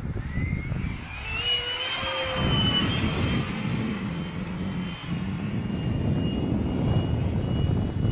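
Radio-controlled model jets flying past overhead: a high jet whine that rises in pitch over the first couple of seconds and then holds, over a steady rushing rumble.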